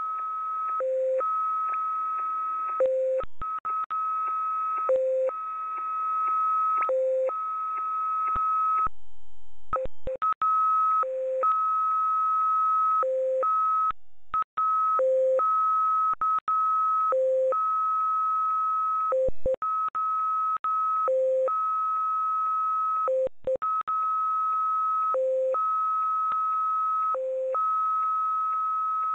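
Shortwave signal of the Russian XPA numbers station received in upper sideband, sending its high and low start tones: a long high tone broken about every two seconds by a short lower beep, over radio hiss. The signal fades out briefly about nine seconds in.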